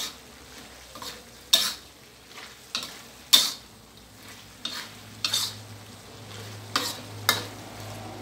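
Metal spatula scraping and clanking against a steel wok, about ten sharp strokes at irregular intervals, as chicken giblets and holy basil are stir-fried. A steady sizzle of frying runs underneath.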